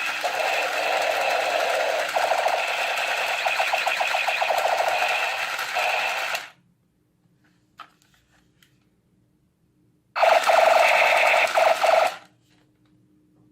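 Toy gun's electronic firing sound effect from its small built-in speaker: a buzzy, rapid-fire rattle over steady tones that stops about six and a half seconds in, a small click, then a second burst of about two seconds starting about ten seconds in.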